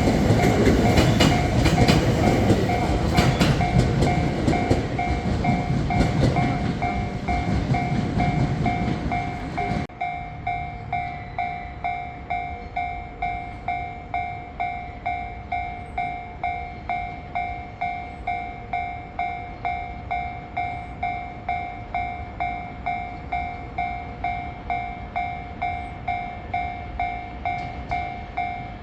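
A train passing over the level crossing with wheel clatter and rumble, under the level-crossing alarm's steady two-tone ding-ding ringing about one and a half to two times a second. About a third of the way in, the train noise stops abruptly and the crossing alarm rings on alone, meaning the barriers are still down.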